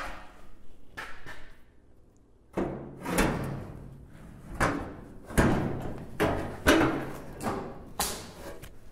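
A large sheet-steel floor pan section being worked into place against a Triumph Spitfire body shell: a series of irregular scrapes, rubs and knocks of sheet metal on metal, with a short lull about two seconds in.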